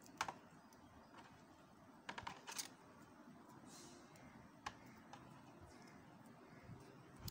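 Faint, scattered clicks and crinkles of floral tape being stretched and wound around a wire flower stem, with a small cluster about two seconds in.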